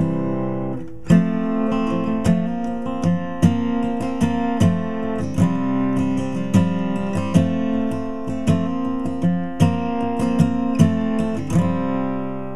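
Acoustic guitar strummed steadily in open position, working through an F, Fsus and Csus chord progression. The strums start about a second in and come at an even pace.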